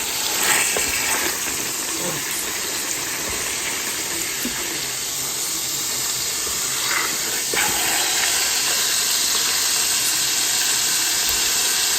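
Chuck roast searing in bacon grease in a Ninja Speedi on its sear/sauté setting at the highest heat: a steady sizzle and hiss, with grease popping a little, a little louder about seven seconds in.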